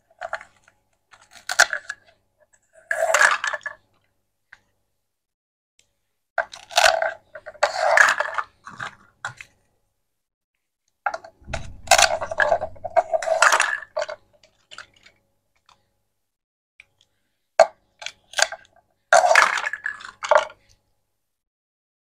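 Plastic toy fruit and vegetables being cut apart with a plastic toy knife on a wooden chopping board and handled: clicking, tapping and plastic clattering in four bursts with short pauses between.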